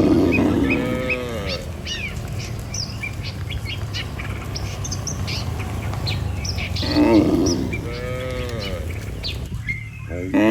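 Cattle lowing: a long drawn-out moo at the start and another about seven seconds in, with a third starting just at the end. Small birds chirp and twitter all through.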